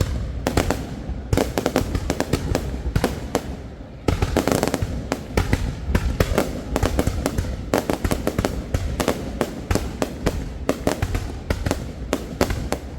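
Fireworks going off in a dense, rapid barrage of bangs and crackles, rising to a louder volley about four seconds in.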